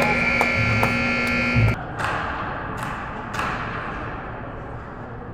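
Ice rink scoreboard horn sounding a steady, loud blast that cuts off suddenly about two seconds in. Then quieter arena noise follows, with a couple of sharp knocks.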